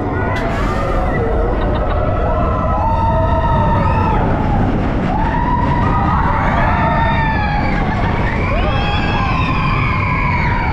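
Roller coaster riders screaming and whooping, many overlapping cries rising and falling, over the steady rumble of the Expedition Everest coaster train and rushing wind as it drops off the lift hill into the dark mountain.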